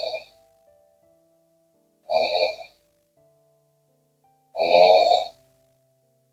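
A woman snoring: three harsh snores about two and a half seconds apart, the last one longest and loudest, with quiet gaps between.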